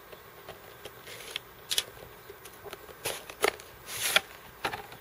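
Cardboard packaging being opened by hand as the inner box is slid out of its outer box: a series of short scrapes and rustles of card against card, with a few light taps.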